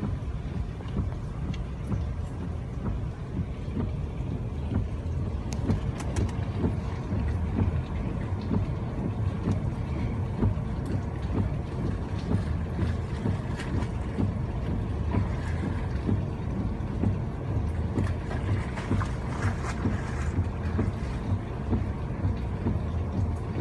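Low, steady rumble of a motor vehicle's engine running, with a faint steady hum above it.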